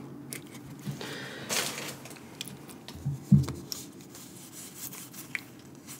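Pokémon card booster pack being opened and its cards handled: soft rustling and rubbing of the foil wrapper and cards, with a brief louder crinkle about a second and a half in and a light knock a little after three seconds.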